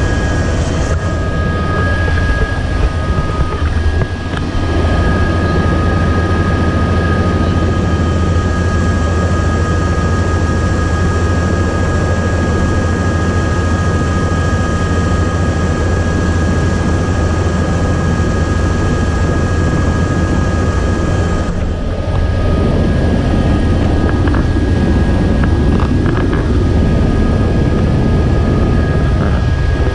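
Tour helicopter's engine and rotor running on the helipad, heard inside the cabin: a steady low drone with a thin, high whine held over it.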